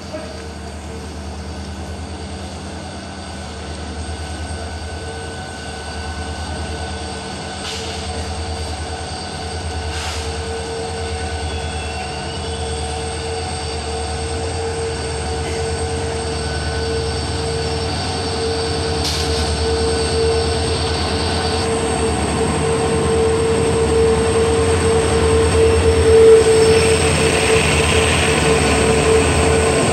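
Twin WDG4 (EMD GT46MAC) diesel-electric locomotives, their 16-cylinder two-stroke EMD 710 engines running under load as they approach at the head of a freight train. A low rumble and a steady whine grow gradually louder until the locomotives pass close by near the end.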